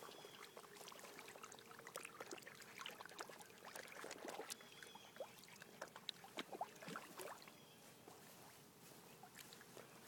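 Faint, scattered splashing and sloshing of shallow pond water as a Siberian husky paws at catfish, with irregular small splashes and ticks.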